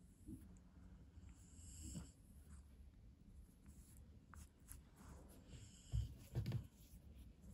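Faint snuffly breathing of a French Bulldog held close to the microphone while a cotton pad rubs over its face, with two short, louder low noises about six seconds in.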